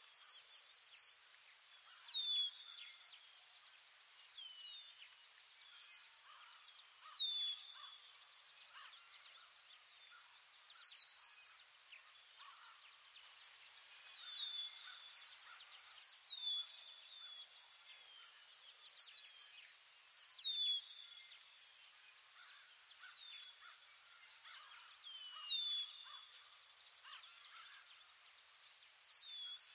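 Ambient forest soundscape: a steady, fast-pulsing high insect chorus, with a bird giving short, falling whistled calls every second or two, often in pairs.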